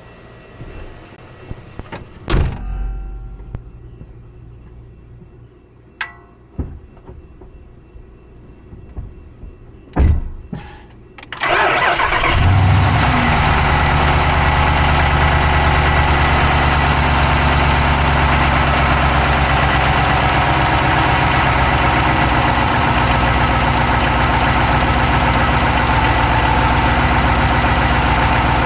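A few sharp knocks, then about 12 s in a Dodge Charger's Hemi V8 cranks briefly and starts, settling into a steady idle. Heard from inside the engine bay, the idle carries a fast clicking.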